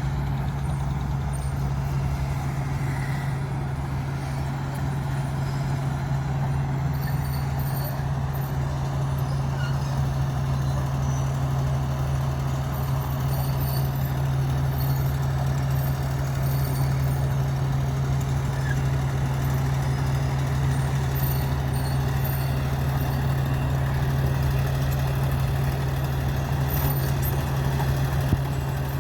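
Heavy diesel engine of a construction machine running steadily at constant speed, a deep even drone.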